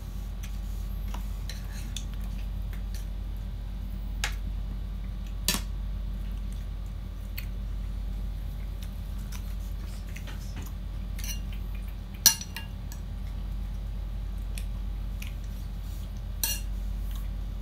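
A few sharp clinks of metal spoons against ceramic plates and bowls during a meal, the loudest about twelve seconds in, over a steady low hum.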